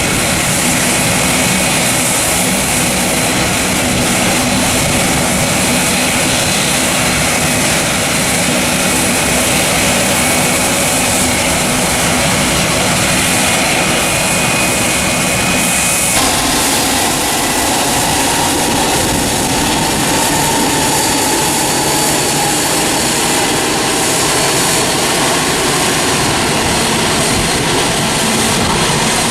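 Jet engines of a Boeing 767 cargo airliner running, a loud steady roar with a faint high whine. The sound changes abruptly about halfway through.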